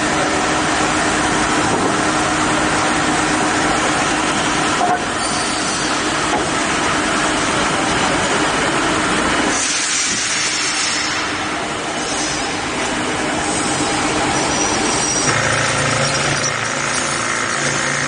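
A woodworking machine running as it cuts slots into the ends of wooden boards. It makes a loud, steady, dense hissing noise that shifts in tone about ten seconds in and again a few seconds before the end.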